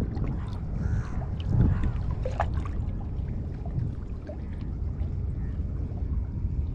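Water lapping and sloshing against breakwater rocks under a steady low wind rumble on the microphone, with a few faint ticks.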